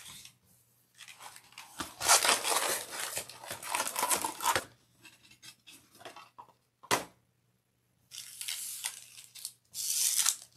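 Sealed trading-card pack wrappers crinkling and rustling as a handful of packs is pulled from the box and dropped onto a pile, in two long stretches. There is one sharp tap about seven seconds in.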